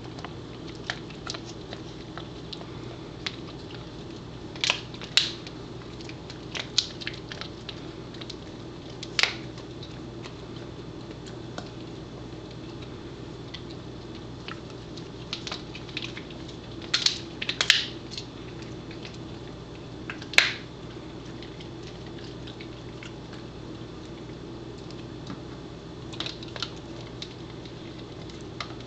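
Pembroke Welsh Corgi chewing a dried Angus beef tendon treat: irregular sharp crunches and gnawing clicks, some in quick clusters, over a steady low hum.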